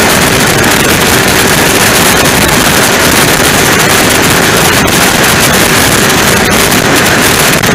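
Steady loud rushing noise of offshore powerboat engines running, mixed with wind buffeting the microphone, with a couple of faint clicks.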